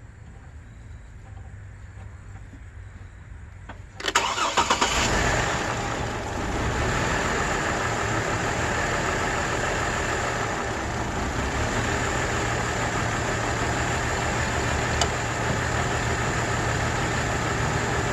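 The 2005 GMC Envoy's 4.2-litre inline-six is cranked by the starter about four seconds in, catches within about a second and then idles steadily. It is running with a misfire from a bad ignition coil, which has just been moved to cylinder 2.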